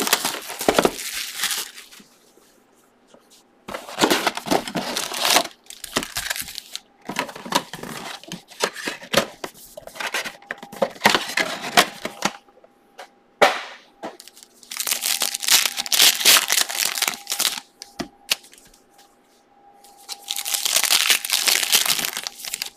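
Plastic shrink-wrap and foil trading-card pack wrappers crinkling and tearing as a box of football cards is unwrapped and its packs handled and opened, in about six bursts with short pauses between.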